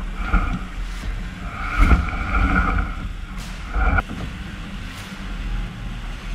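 Wind and rushing water on a sailing yacht heeled over in strong wind as its spinnaker is hoisted and fills. There are louder slaps or knocks about two and four seconds in, and a high whine comes and goes in short stretches.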